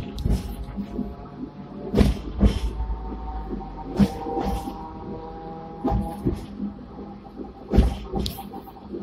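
Sixth-generation Hong Kong tram running along the track, heard from inside the car. A steady whine holds for seconds at a time, and sharp knocks and rattles come every second or two and are the loudest sounds.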